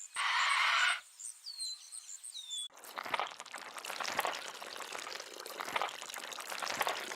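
Edited sound-effect clips: a short hissing burst and two brief falling whistles, then an abrupt cut about three seconds in to a dense spatter of pouring, splashing water.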